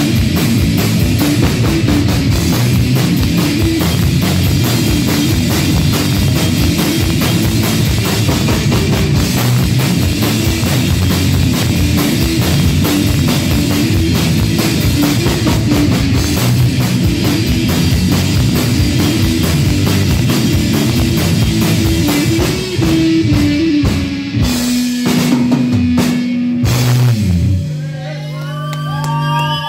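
Electric guitar and drum kit played loud by a live rock duo. Near the end the song breaks into a few separate heavy hits and finishes on a held, ringing guitar chord.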